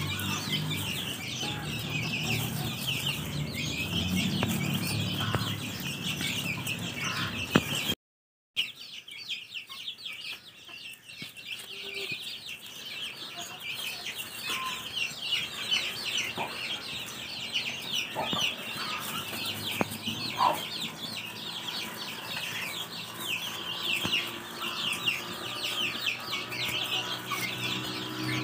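A brood of chicks peeping constantly in quick high chirps while feeding, with a hen clucking low now and then. The sound drops out for about half a second some eight seconds in.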